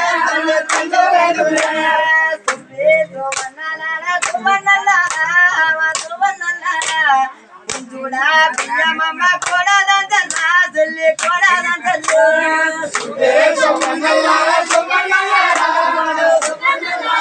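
Folk singing or chanting with sharp rhythmic claps or strikes, roughly one a second, keeping time under the voice.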